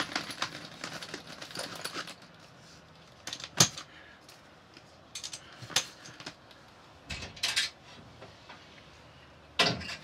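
Canvas entrance panel of a narrowboat pram hood being unfastened and rolled up: a rapid crackling for the first two seconds, then several separate clacks and rustles of fabric and fittings, the sharpest about three and a half seconds in, and a last pair near the end.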